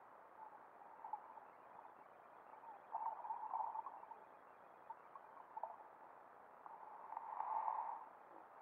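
Muffled underwater sound picked up by a GoPro in its waterproof housing: a steady hiss with short bubbling blips, and louder bursts about three seconds in and again near the end.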